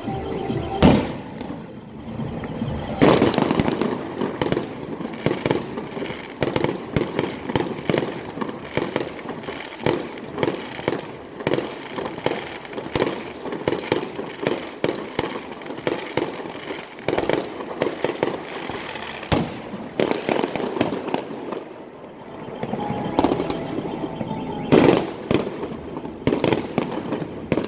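Fireworks going off in a rapid, continuous run of bangs and crackling pops, with heavier bursts about a second in, around three seconds in and again near the end.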